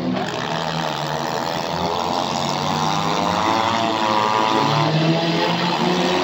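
Several demolition derby cars' engines running and revving at once, their pitches rising and falling as they overlap.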